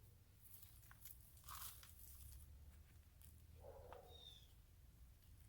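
Near silence with faint crunching and rustling of soil and old potato debris as gloved hands dig through a container of soil for potatoes.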